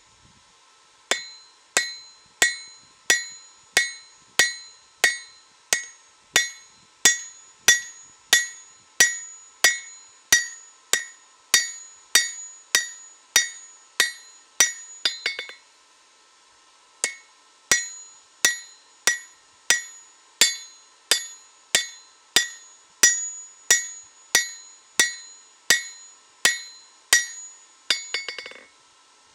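Hand hammer striking hot leaf-spring steel on a steel anvil, about two blows a second, each blow leaving a bright ringing tone. The blows pause for about a second and a half midway, then resume, and there is a brief rattle near the end.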